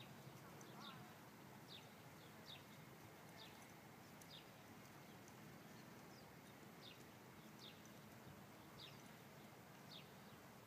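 Near silence with a small bird's short chirps, each falling in pitch, repeated faintly about once a second over a low steady outdoor hum.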